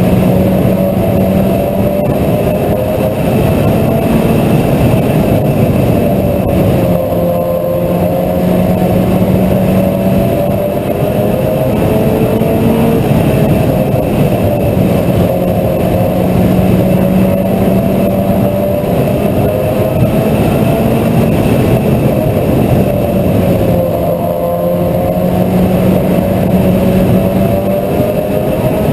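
Mini stock race car engine running hard at racing speed, its pitch rising and falling in a slow cycle about every eight seconds, over a heavy rush of noise.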